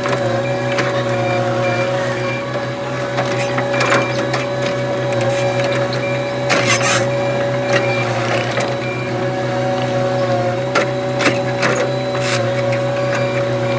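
CAT 259D compact track loader running steadily with a high whine while its bucket pushes dirt, with several sharp clanks and scrapes from the bucket and tracks.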